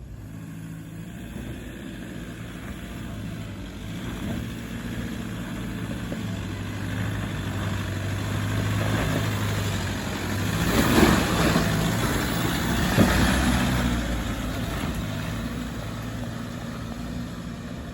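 Four-wheel drive engine labouring up a steep, loose, rocky climb, getting louder toward the middle as it pushes on, then easing off. Two sharp knocks about two seconds apart as it crawls over the rough ground.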